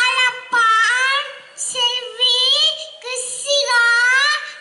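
A young child singing into a microphone in a high voice, in short phrases that rise and fall, with brief pauses between them.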